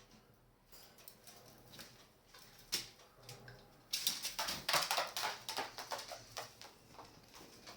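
Birds pecking and tapping on a hard surface: scattered sharp clicks, then a dense flurry of rapid taps about four seconds in that lasts a couple of seconds and tails off.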